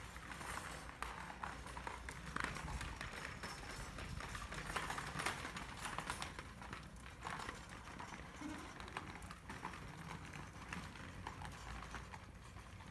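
Footsteps of a person walking on stone paving, a steady run of hard, short steps over a low outdoor rumble.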